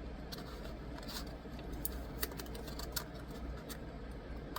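Scattered light clicks and taps of a phone box's small contents and packaging being handled, over a faint steady low hum.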